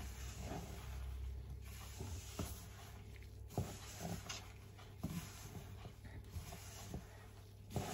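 A rubber-gloved hand kneading dry, crumbly glutinous rice flour dough in a stainless steel bowl: irregular soft rubbing and squishing, with several short knocks, over a low steady hum.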